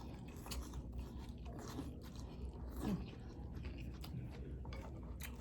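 Close-up eating sounds from pho: chewing, with many small scattered clicks and mouth noises.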